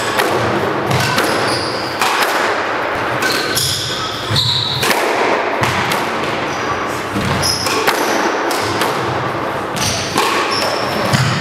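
Squash rally: the ball strikes rackets and the court walls about once a second, with short high squeaks from sneakers on the hardwood floor.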